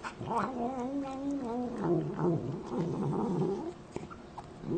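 A cat's long, drawn-out yowl lasting about three seconds, wavering in pitch and dropping lower partway through.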